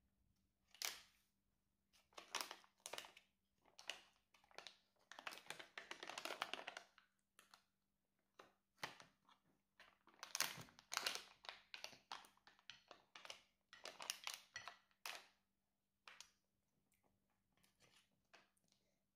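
Crinkling and light clicking of a plastic squeeze pouch of baby food and a plastic spoon being handled, in short scattered bursts, with a longer crinkle about five seconds in and another around ten seconds in.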